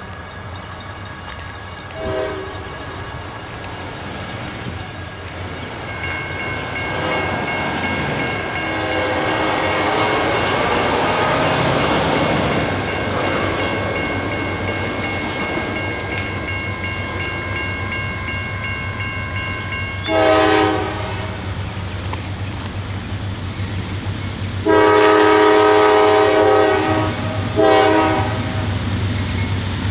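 A distant diesel locomotive's horn on an approaching CSX freight train: a short blast a couple of seconds in, then a long blast, a longer one and a short one near the end, sounded for a grade crossing. A steady low rumble from the approaching train runs underneath.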